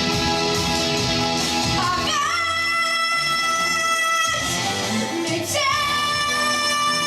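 A boy's unbroken treble voice singing a pop song over instrumental accompaniment, with two long held notes, the first starting about two seconds in and the second a little past the middle.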